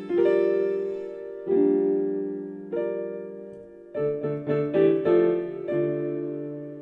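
Slow piano music: chords struck about every second and a half, then a quicker run of notes, ending on a chord that rings and fades away.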